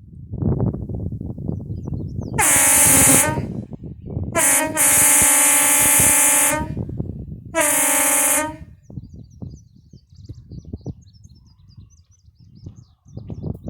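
Homemade WOLO air train horn sounding three blasts: a short one, a long one of about two seconds, and another short one. Each is a loud chord of several tones that sags slightly in pitch as it cuts off. A low rumbling noise comes before the first blast.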